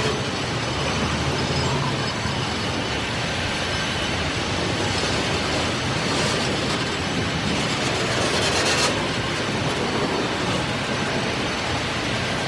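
Mining freight train rolling along the track: a steady rumble and rattle of the cars on the rails, with a brief swell of hiss about nine seconds in.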